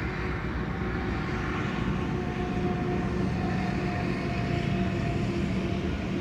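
A train passing: a steady rumble with a faint steady tone running through it.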